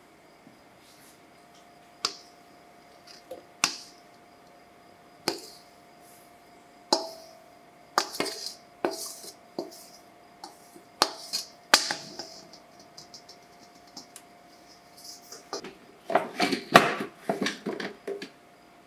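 Kitchenware being handled: scattered sharp clicks and knocks, then a denser run of plastic clattering near the end as a food processor's plastic lid and feed-tube pusher are fitted. A faint steady hum sits underneath.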